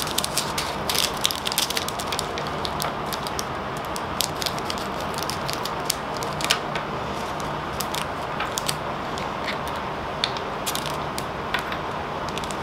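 Irregular small clicks, rattles and crinkles from handling little plastic screw-top storage jars and packets of round resin diamond-painting drills, over a steady low background hum.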